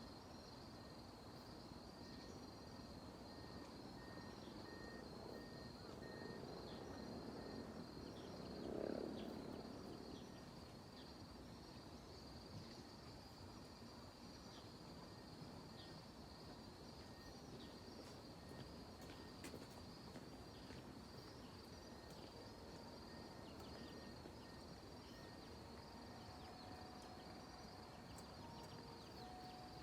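Faint, steady high-pitched insect trilling. A low rush of noise swells and fades around eight to nine seconds in.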